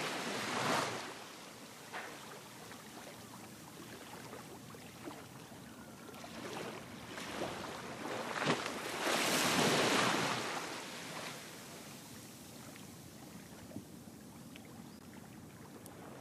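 Waves washing and wind at the water's edge: a steady noisy wash that swells briefly near the start and more strongly about nine to ten seconds in, with a few faint clicks.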